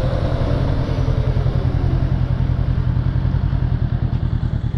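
Honda CB500F's parallel-twin engine running steadily at low revs with an even, throbbing beat as the motorcycle rolls slowly along.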